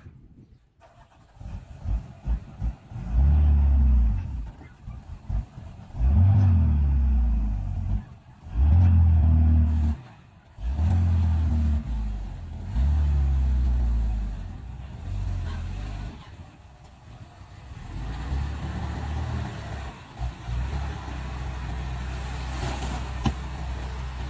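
Heavy machine engines revving hard in repeated bursts of a second or two, dropping back between them, then settling to a steadier, lower run near the end, with a single sharp click shortly before the end.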